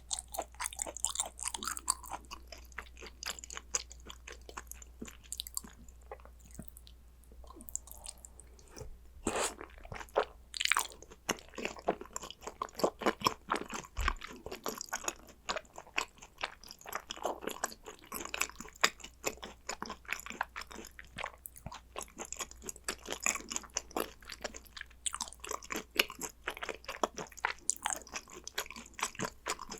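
Close-miked chewing of gochujang-seasoned raw beef tartare (yukhoe), with a steady run of crisp crunching bites and mouth clicks, thinning out briefly a few seconds in.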